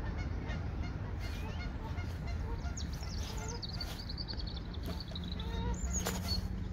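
Birds calling around a lake: scattered short honking and chirping calls, with a high twittering trill about three seconds in, over a steady low rumble.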